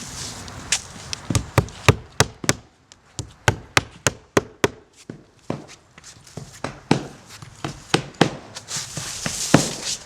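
Rapid sharp strikes of a fastening tool driving nails into the roof deck to hold down modified base-paper underlayment, some a third of a second apart with short pauses between runs, and a rustling hiss near the end.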